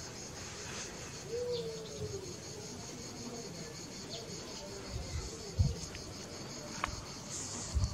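Crickets chirping in a steady, evenly pulsing high chorus, with a brief low thump a little past halfway.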